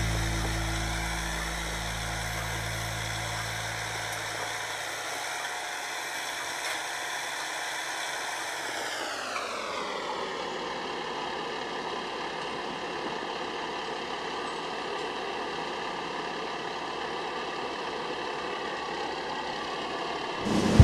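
Sewer vacuum truck's engine and vacuum unit running with a steady whine. About nine seconds in, the pitch falls smoothly as it slows to a lower steady speed.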